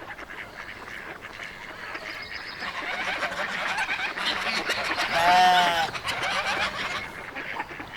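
A horse neighing once, a loud pitched call lasting about a second that rises and falls, about five seconds in. Before it, a rising bed of scuffling, rustling noise.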